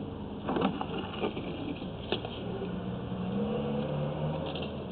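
An engine running steadily in the background, its pitch rising slightly about three seconds in, with a few faint knocks.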